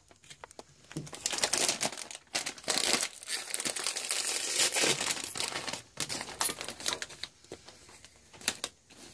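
Plastic snack package being crinkled and handled in a long irregular crackle, dying down to a few scattered crinkles and clicks near the end.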